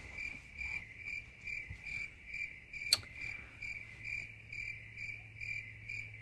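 A cricket chirping in a steady rhythm, about two and a half short high chirps a second, with one sharp click about three seconds in.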